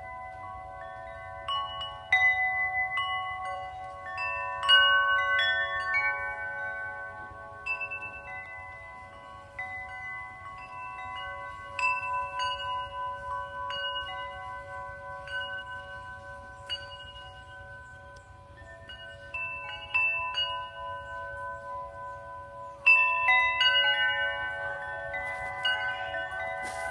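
Dofrance tubular wind chimes, sets of long metal tubes struck by their hanging striker discs, ringing in overlapping sustained tones. Strikes come in loose clusters every few seconds, with a louder flurry of strikes about 23 seconds in.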